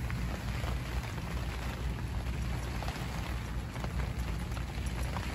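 Strong, gale-force wind blowing against a fishing bivvy, with a steady low rumble of wind on the microphone and the hiss of rain on the tent fabric.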